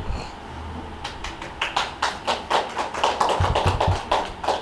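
A few people clapping, scattered and uneven, with some low thuds in the middle.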